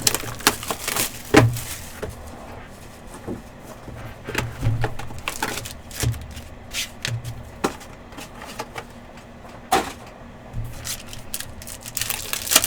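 A box of trading cards being opened and its wrapped pack handled: scattered sharp clicks and knocks of cardboard, with a burst of crinkling wrapper near the end.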